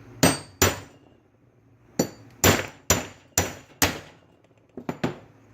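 Hammer blows driving the shaft out of a Subaru SVX power steering pump: two sharp strikes, a pause, then five more about half a second apart, and two lighter taps near the end.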